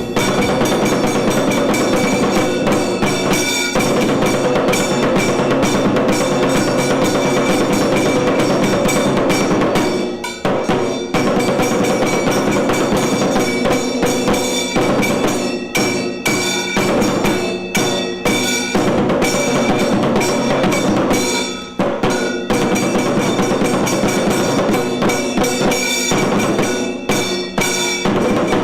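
Tiru Kailaya Vadyam, a Tamil temple percussion ensemble, playing loud, dense drumming with steady sustained tones ringing over it. The drumming thins out briefly about ten seconds in and again just before twenty-two seconds.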